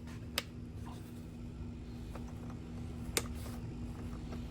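Two light clicks about three seconds apart over a faint steady hum, from the switches of a radio-controlled tank and its transmitter being set for a bench test.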